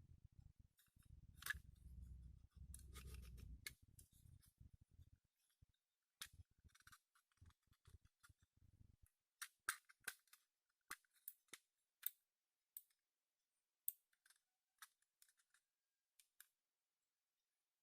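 Irregular small, sharp clicks and taps of a computer mouse's plastic parts being handled and worked on during a scroll-wheel repair, with some low handling rumble in the first few seconds.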